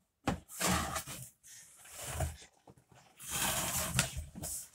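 Cardboard box flaps being pulled open and handled, in several short scraping, rustling bursts.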